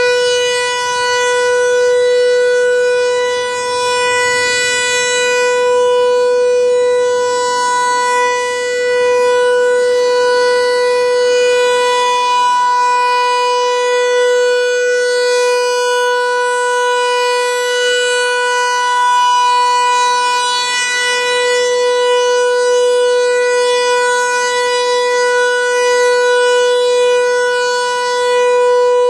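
ASC T-128 rotating outdoor warning siren sounding a steady Alert tone during its scheduled test. One loud, unbroken pitch swells and fades about every four seconds as the siren's horn turns.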